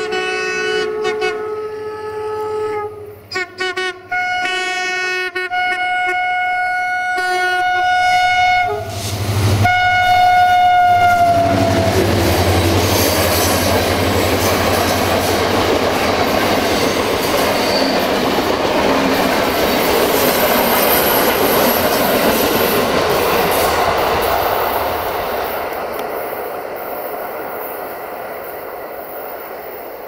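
Horn of a CFR GM diesel locomotive (64-1357-4) sounding a series of blasts: a long chord, a few short toots, another long chord, then a last blast that falls in pitch as the locomotive passes. The locomotive then runs by with loud engine and wheel noise, followed by its passenger coaches rolling past on the rails, fading over the last few seconds.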